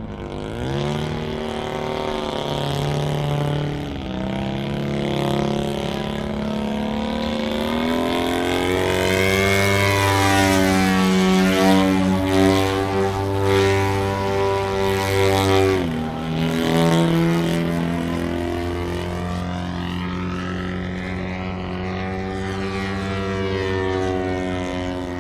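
Radio-controlled model airplane's engine and propeller running in flight. The pitch steps up and down as the throttle changes, loudest around the middle, then sweeps down and back up near the end as the plane passes.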